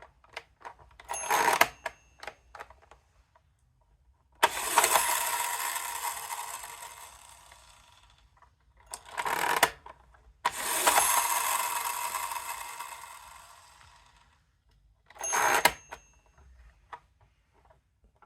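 Plastic and spring mechanism of a Tomy Compu-Bowl mechanical bowling toy being worked: clicks and clacks of its levers with a faint metallic ring, and twice a sudden rattling run that fades out over about four seconds.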